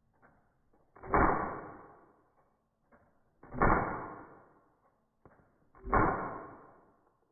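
Three BB gun shots played back in slow motion, each a deep drawn-out bang that fades away over about a second and a half, about two and a half seconds apart.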